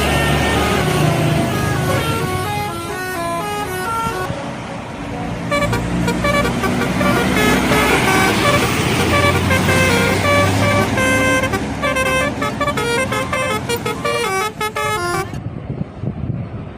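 Indonesian bus telolet horn playing quick melodic runs of short stepped notes, phrase after phrase, over the low running of the bus engine.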